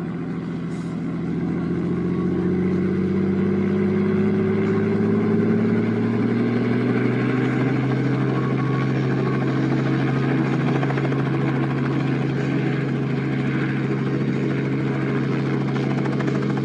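Light helicopter running on the ground and spooling up. Its engine and rotor rise in pitch over the first several seconds, then hold a steady, even drone at speed.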